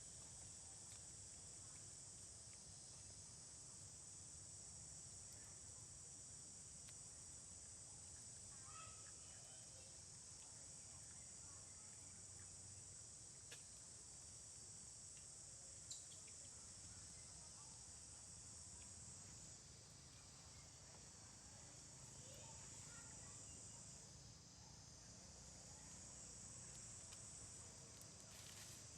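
Faint, steady, high-pitched insect chorus buzzing without a break; part of the chorus drops out about two-thirds of the way through.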